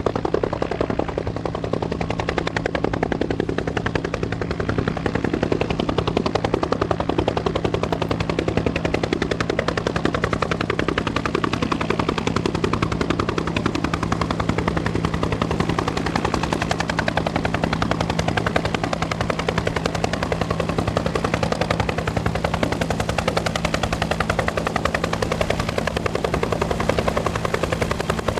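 Bell UH-1 Huey helicopter's two-blade main rotor beating out a rapid, even blade slap, with the steady hum of its turbine engine underneath.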